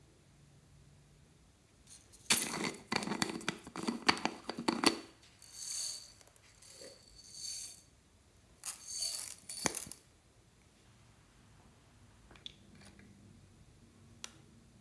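Small plastic pearl beads rattling and clicking as they are tipped out of a jar into a palm. There is a dense run of clicks for about three seconds, then a few shorter bursts, the last ending about ten seconds in.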